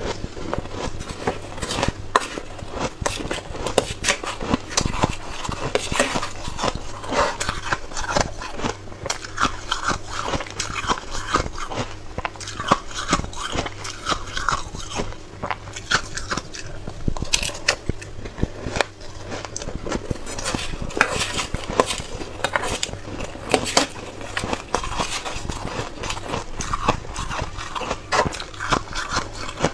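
Close-miked biting and chewing of granular white "buckwheat" ice, a dense, irregular run of small crackling crunches.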